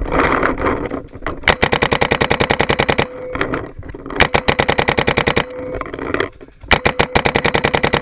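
Paintball marker fired in three rapid bursts of about twelve shots a second, each shot a sharp pop.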